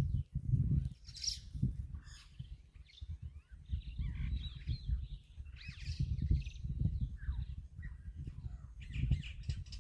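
Several birds chirping and trilling in short, scattered calls over a heavy, uneven low rumble.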